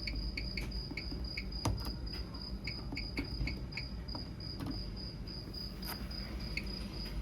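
A cricket trilling steadily in the background, with a string of short, high blips at irregular spacing and a few faint clicks.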